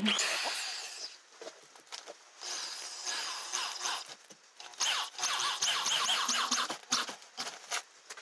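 Corded electric drill driving construction screws into a wooden 2x4, with a squealing, zipping sound as the screw bites into the wood. There is a short run right at the start, then a longer run of several seconds after a pause.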